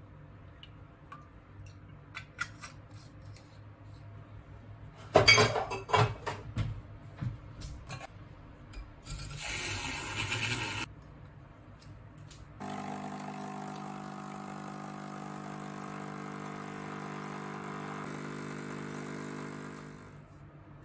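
Kitchen sounds: clinks and knocks of dishes and utensils, loudest about five seconds in, then a hiss lasting about two seconds. From about halfway, a small electric kitchen appliance runs with a steady hum for about seven seconds and then stops.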